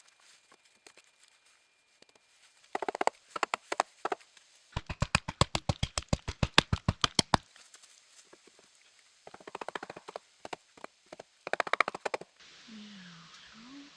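A series of sharp knocks from work on the cabin wall. They come in short clusters, with an even, fast run of about eight knocks a second in the middle.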